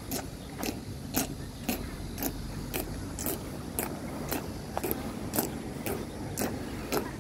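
Marching boots of a three-man honor guard striking stone paving in step, a sharp even heel strike about twice a second, some strikes slightly doubled where the feet do not land together.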